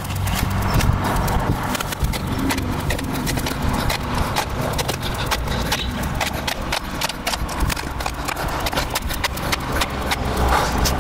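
Steel shovel scraping and knocking in loose soil as dirt is pushed around a planting hole: irregular sharp clicks and scrapes over a low steady rumble.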